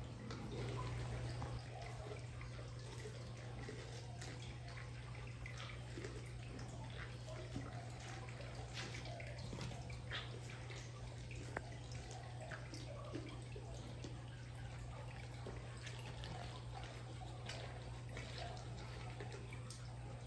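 Amur tiger eating raw meat, chewing and licking: faint, scattered wet clicks over a steady low hum.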